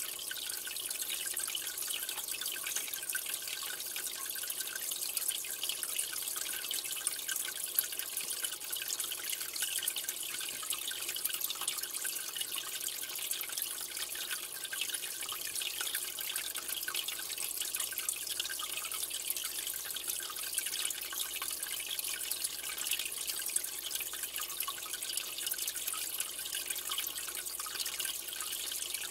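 Water trickling and dripping steadily, a dense patter of small splashes with no change, as from an aquarium's filter return or aeration splashing at the surface.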